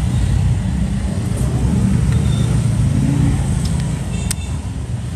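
Low, steady rumble of a vehicle engine that eases off about four seconds in, with one sharp click just after.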